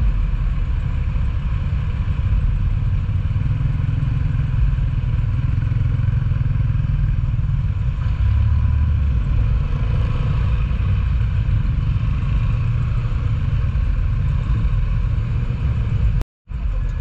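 Motorcycle engine running at idle and low speed in slow traffic, picked up by a homemade camera microphone as a heavy, steady low rumble with traffic noise around it. The sound cuts out completely for a fraction of a second near the end.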